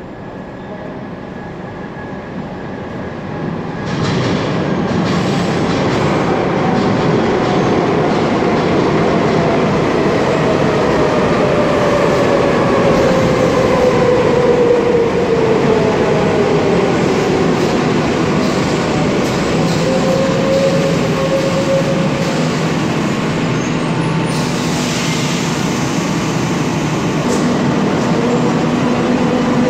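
Madrid Metro train pulling into an underground station. The rumble grows as it approaches and gets louder about four seconds in as the train enters the platform. The traction motors' whine falls steadily in pitch as the train brakes, then it idles at a stand with a steady hum and a brief hiss about three-quarters of the way through.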